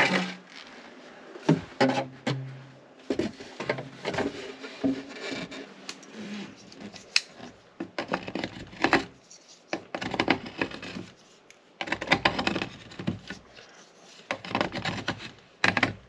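Hand scraping of the inside rim of a cut black plastic drain pipe, first with a deburring tool and then with a pocket knife blade. It comes as a series of irregular scrapes and clicks, with handling knocks in between.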